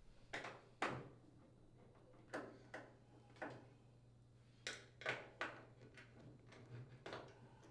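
Faint, irregular clicks and scrapes of a screwdriver with a Torx bit turning out the screws of a front-load washer's sheet-metal rear access panel, about nine in all.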